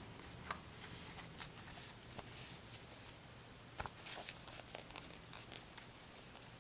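Faint handling noises: scattered small clicks and light rustling, with a sharper tick about half a second in and another near four seconds in.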